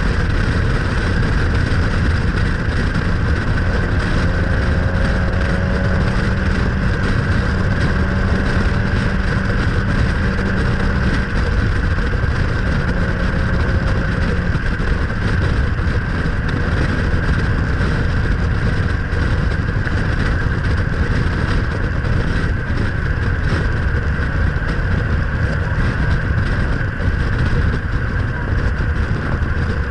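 Nissan Pulsar GTI-R with its turbocharged SR20DET four-cylinder cruising at a steady road speed, heard from an action camera mounted on the outside of the car: wind rushing over the microphone and tyre and road noise over the engine. A low, steady engine note stands out in the first half, then fades back into the wind.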